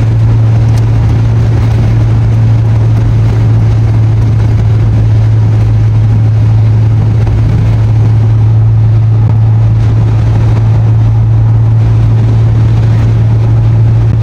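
Loud, steady rush of a car driving at freeway speed in very strong wind: wind and road noise fill the cabin over a constant low drone, with no let-up.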